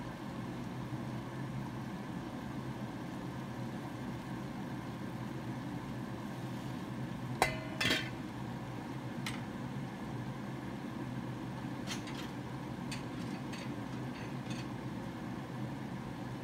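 A metal pan lid set down with a sharp clink and a brief ring about halfway through, then a few lighter clicks of chopsticks against a nonstick frying pan, over a steady low hum.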